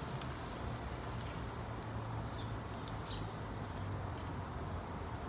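A person chewing fried chicken, with a few faint wet clicks from the mouth over a steady low hum.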